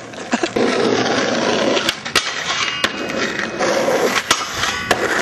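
Skateboard wheels rolling on rough asphalt, a steady rumbling roll, with a few sharp clicks and knocks from the board.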